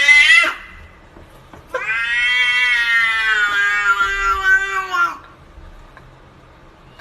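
Domestic cat yowling: a rising call ends about half a second in, then one long drawn-out yowl of about three and a half seconds that sinks slightly in pitch at the end.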